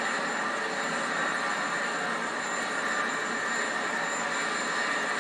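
Helicopter's turbine engines running steadily on the ground: an even whine with a thin high tone held throughout.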